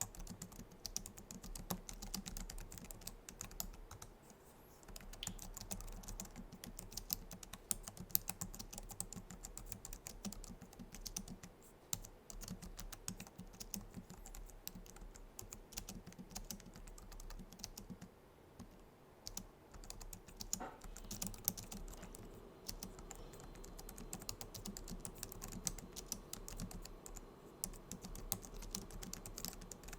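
Typing on a Logitech MX Keys keyboard, its low-profile scissor-switch keys clicking in quick, uneven runs with a few brief pauses.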